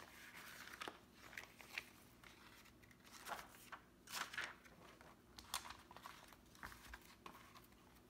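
Soft, irregular rustling and crinkling of thin vellum and acetate sheets being slid and handled over a notebook insert, a string of short rustles with the busiest stretch around the middle.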